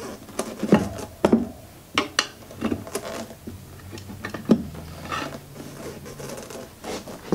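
Metal 9-inch tire irons clicking and knocking against a spoked motorcycle wheel's rim as the tire bead is levered back onto it, a series of irregular sharp clinks with some rubbing.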